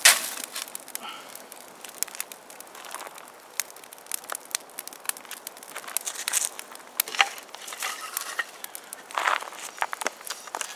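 Small kindling fire of twigs and sticks crackling and popping irregularly as it catches, with a few louder snaps. A clatter of dry sticks being laid on the fire right at the start.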